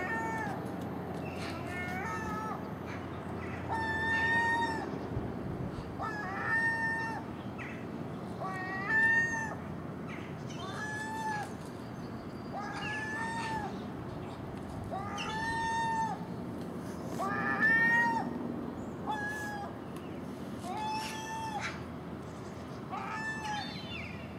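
Common gull giving its drawn-out mewing call over and over, about one call every two seconds, each call a clear, slightly wavering note just under a second long.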